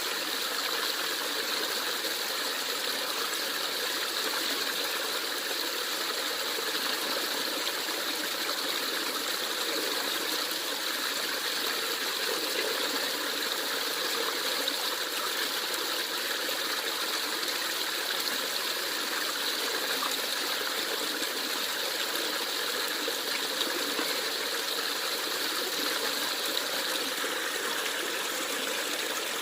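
Stream water flowing steadily, an even rushing murmur without break.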